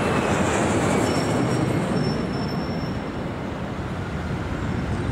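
Low-flying jet airliner passing overhead: a steady, loud rumbling engine roar with a high whine that slowly falls in pitch over the first second or so. The engine sound is a dubbed-in recording, not the original.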